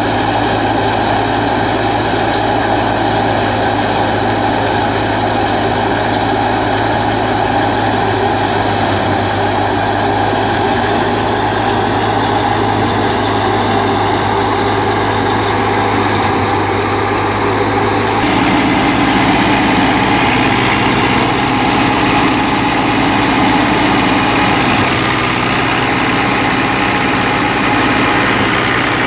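New Holland Dabung 85 tractor's four-cylinder diesel engine running steadily under load, driving a wheat thresher through its PTO, together with the clatter of the thresher. The mix of hums shifts about two-thirds of the way through.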